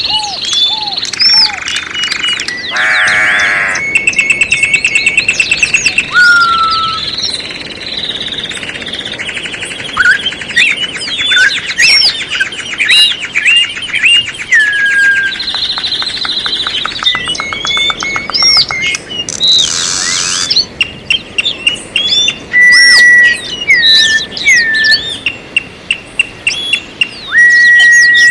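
Several songbirds singing at once: fast trills, whistled downslurs and short chirps overlapping continuously.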